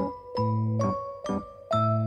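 Background instrumental music: a gentle melody of struck, ringing keyboard-like notes over sustained low bass notes.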